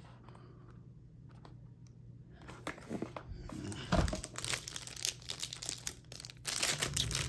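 Plastic packaging crinkling and crackling as it is handled and pulled at, starting about two and a half seconds in, with a dull thump about four seconds in.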